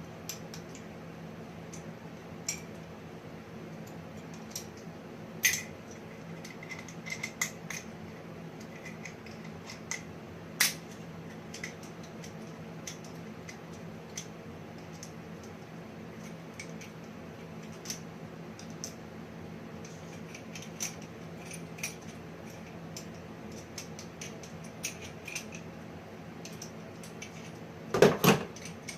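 Scattered light metallic clicks and clinks of hand tools and BMX parts being handled during assembly, with a louder knock about a second before the end. A steady low hum runs underneath.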